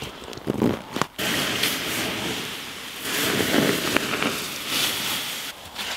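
Water poured from a plastic container onto campfire ashes, hissing and splashing as the fire is doused. It starts about a second in, runs steadily for about four seconds and stops shortly before the end.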